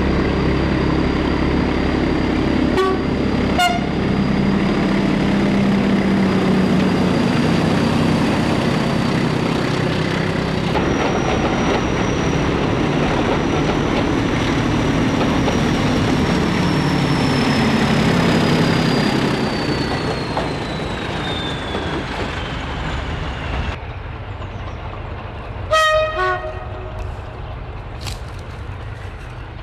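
Preserved British Rail diesel locomotives hauling passenger coaches past, engines running steadily under load. A brief horn toot comes about three and a half seconds in. Near the end, as a Class 37 approaches, there is a loud two-tone horn blast: a high note and then a lower one.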